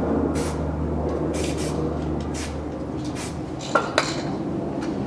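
Several short hisses of an aerosol can spraying the exhaust-flange studs, with two sharp metal clinks of a tool close together about four seconds in, over a low steady hum.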